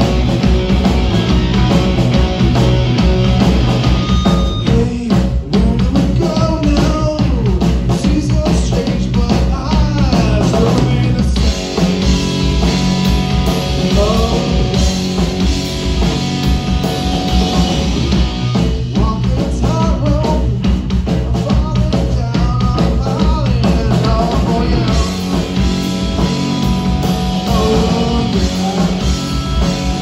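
Rock band playing live, loud and continuous: electric guitars over a drum kit.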